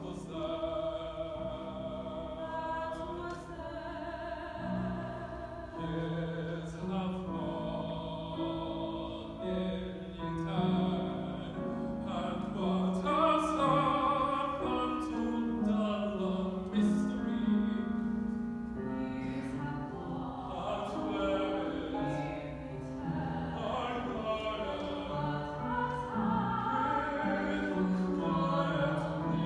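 Classical, operatic-style solo singing on stage with vibrato in the held notes, first a woman's voice and then a man's, over a quieter accompaniment.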